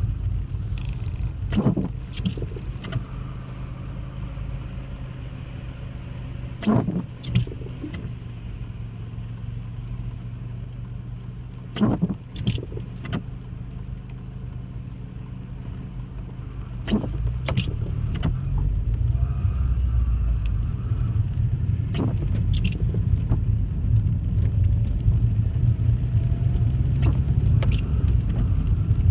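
Car driving, heard from inside the cabin: a steady low road and engine rumble that grows louder about two-thirds of the way through, with short sharp rattling clicks recurring about every five seconds.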